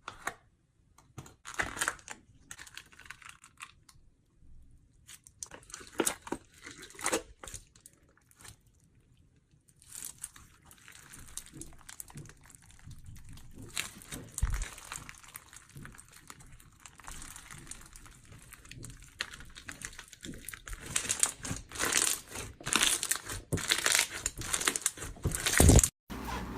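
Slime being squished and stretched by hand, giving irregular crackling and popping, sparse at first and busier from about a third of the way in.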